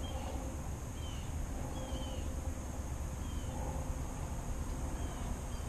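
Quiet pond-side ambience: a steady high insect buzz over a low rumble, with a short falling bird chirp about once a second.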